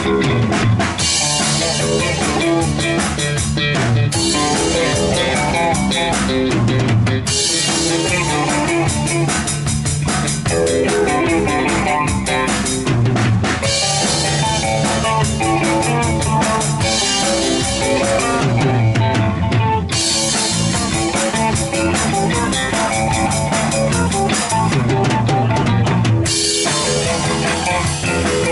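A live band jamming instrumental rock on drum kit and guitar, with no singing. The cymbals wash in for stretches of a few seconds at a time over a steady beat.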